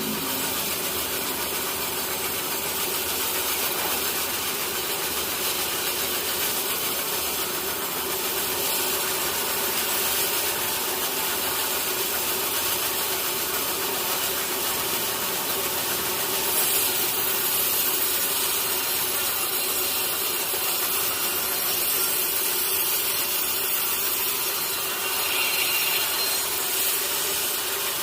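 Sawmill saw cutting lengthwise through a teak log: a steady hiss of the blade in the wood, with a low hum underneath.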